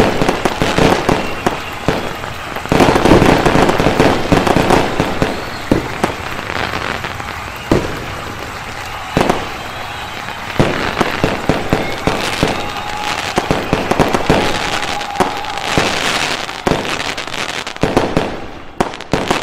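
Fireworks going off: an irregular run of sharp bangs over dense crackling pops.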